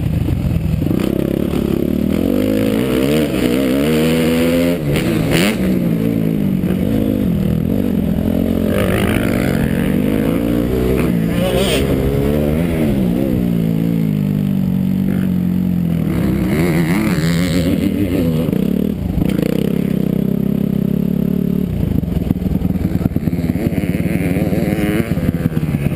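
Suzuki RM-Z four-stroke single-cylinder motocross engine heard from a helmet-mounted camera, revving up and dropping back again and again as the rider accelerates, shifts and backs off, with wind rushing over the microphone.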